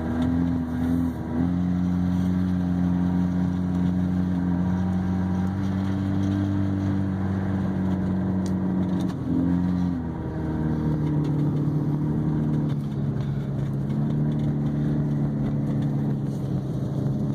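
Car engine running while the vehicle drives on, a steady hum whose pitch steps up and down a few times: about a second in, near ten seconds, and again around thirteen to fourteen seconds.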